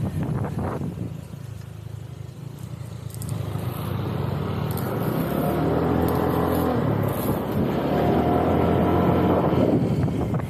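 Motor scooter engine running while riding, with wind on the microphone; from about three seconds in, a louder engine note builds up and holds.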